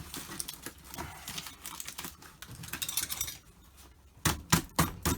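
Parcel packaging being handled and pulled open: irregular rustling and crackling with many small clicks, a brief lull, then a quick run of sharper clicks and knocks near the end.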